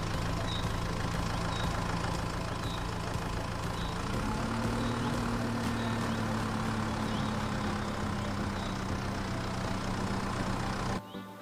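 Tractor engine sound effect running steadily; its pitch steps up about four seconds in, as if revving to pull away, and it cuts off abruptly near the end.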